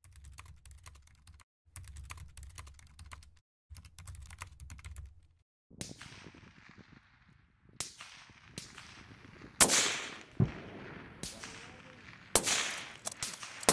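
Keyboard typing sound effect: three bursts of rapid key clicks over a low hum. Then, from about six seconds in, sniper rifle shots, about half a dozen, each with a long echoing tail, the loudest a little before ten seconds.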